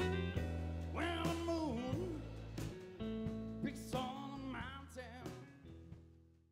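Blues band music with guitar and bending notes, fading out near the end.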